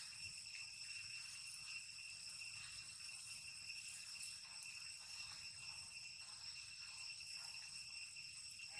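Insects shrilling in a steady, unbroken high-pitched drone.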